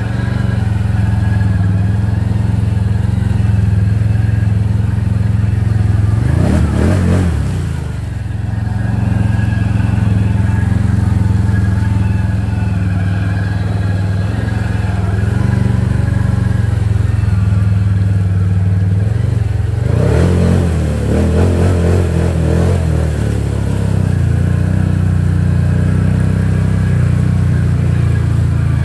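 Can-Am Outlander XMR 1000R ATV's V-twin engine running steadily under load as the quad drives through water and mud. Two noisier stretches, about seven seconds in and again around twenty seconds in, fit water and mud splashing up against the machine.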